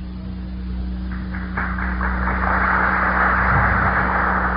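Audience applause, starting with a few scattered claps and building up a second and a half in, then holding steady, over a steady low hum in the old recording.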